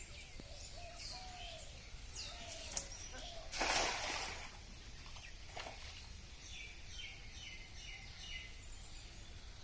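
Small birds chirping and twittering, with a sudden rush of noise lasting about a second, three and a half seconds in, the loudest sound. Near the end, a quick run of falling chirps.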